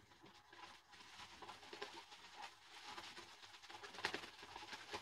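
Faint wet swishing and patter of a synthetic shaving brush whipping shaving soap into lather in a shaving bowl.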